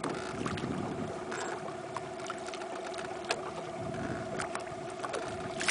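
A boat's motor running steadily with a constant hum, over a low wash of water against the hull, with scattered light clicks and one sharper knock at the very end.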